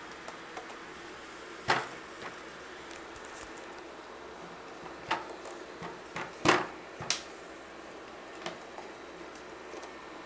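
A small LED projector's cooling fan running with a steady whir, broken by several sharp clicks and knocks from handling: one about a second and a half in, and a cluster between five and seven seconds in, the loudest of them about six and a half seconds in.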